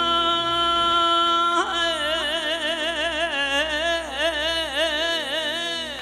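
A male singer performing a Turkish folk song with live band accompaniment: he holds one long steady note, then about one and a half seconds in rises into a long ornamented, wavering melisma that ends just before the end.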